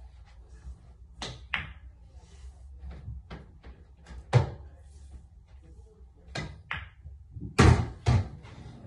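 Pool balls being played on a home pool table: a series of sharp knocks and clacks of the cue striking, balls hitting each other and the cushions and dropping into pockets. The loudest knock comes about four and a half seconds in, and two heavier thuds come near the end.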